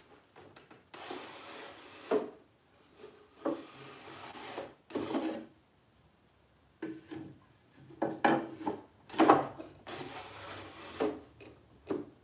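Snug-fitting, hand-planed wooden drawer slid in and out of its wooden case several times, its sides rubbing along the case in a series of sliding rushes, several of them ending in a short knock.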